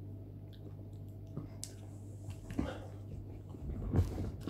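Mouth sounds and breathing of a man with a hot chili in his mouth: small wet clicks and smacks, with a sharper breath about four seconds in.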